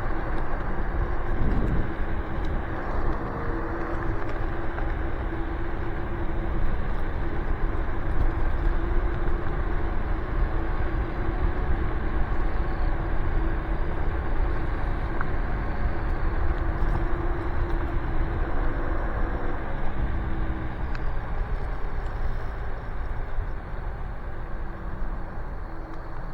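Nanrobot Lightning 2.0 electric scooter with dual 800-watt motors riding along at speed: a steady motor hum under a heavy low rush of wind on the microphone.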